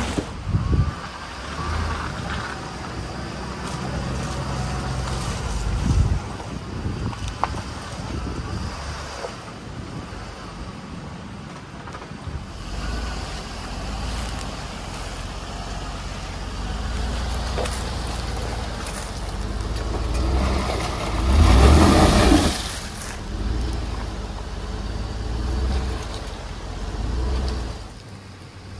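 A Suburban's engine running under load as it is driven up a muddy trail, with a sharp knock about six seconds in and a loud surge of engine and tyre noise about three-quarters of the way through.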